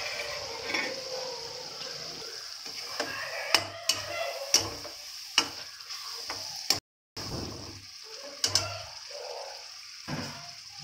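Diced tomatoes frying in oil in a steel wok, with a steady sizzle, while a metal spatula stirs them and clinks and scrapes against the pan several times. The sound drops out for a moment about two-thirds of the way through.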